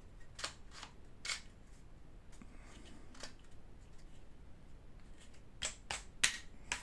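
Sharp plastic clicks as an HK rail cover is fitted onto the rifle's rail: a few clicks in the first second and a half, then a quicker run of four near the end.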